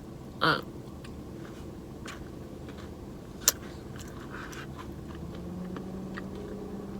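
Quiet mouth sounds of a person eating a soft-serve ice cream Blizzard: chewing and swallowing, with a brief hum about half a second in and one sharp click around halfway, among a few fainter ticks.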